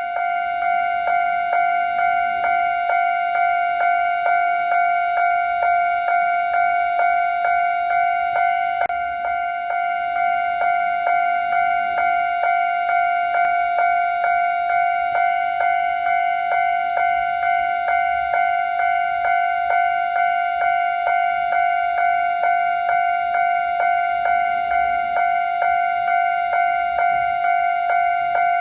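Japanese level-crossing warning bell ringing: an electronic ding repeating at an even pace, a little over once a second, warning that a train is approaching.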